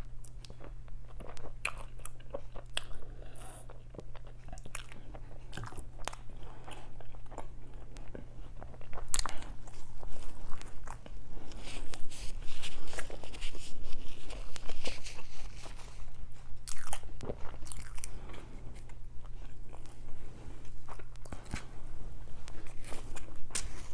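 Close-miked eating: biting and chewing with crisp, crunchy bites and wet mouth clicks, busier and louder from about nine to sixteen seconds in.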